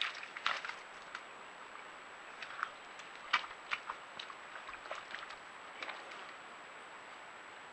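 Red deer hind getting down into a muddy wallow: a scattered series of short wet knocks and squelches as her hooves and body work into the mud, over a steady hiss and a faint high whine from the trail camera.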